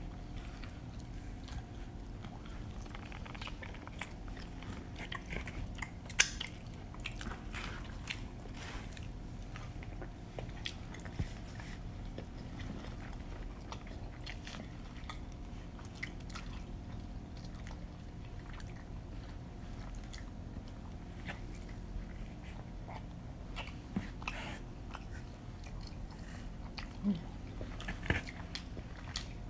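Close-miked eating of pizza: biting and chewing with wet mouth smacks and scattered short clicks over a steady low hum. The sharpest click comes about six seconds in, and a few more come close together near the end.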